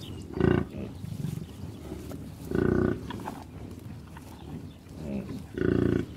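Bison calling three times, short deep grunting bellows a couple of seconds apart, with fainter grunting between.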